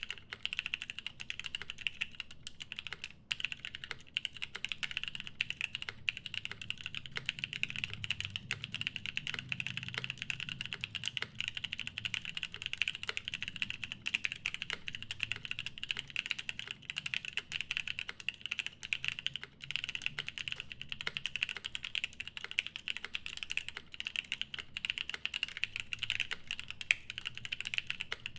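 Continuous fast typing on an Unnamed75 mechanical keyboard with lubed Paco switches in a polycarbonate plate and GMK doubleshot ABS keycaps, a dense unbroken run of keystrokes with occasional heavier spacebar presses.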